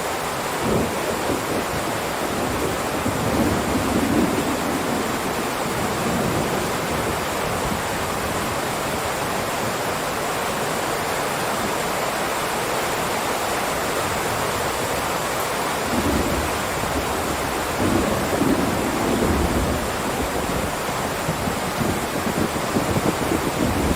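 Heavy rain downpour falling steadily as an even hiss. Deeper rumbles swell up about three to five seconds in, again from about sixteen to twenty seconds, and once more near the end.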